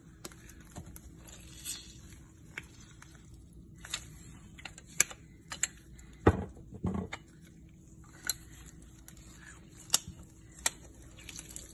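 Handheld plastic lemon squeezer clicking and tapping as a lemon is pressed over a bowl, with two heavier knocks about halfway through.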